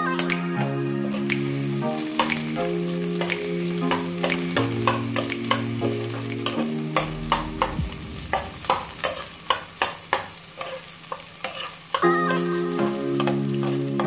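A metal spoon scraping and clicking against a pot as chopped onions are stirred while they fry, with a faint sizzle. Background music with long held notes plays along, dropping out for a few seconds in the middle, where the spoon clicks come through clearest.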